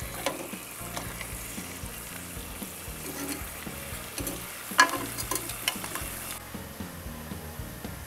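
Cannoli shells deep-frying in hot oil: a steady sizzle, with a few sharp clicks about five seconds in. The sizzle cuts off suddenly about six seconds in.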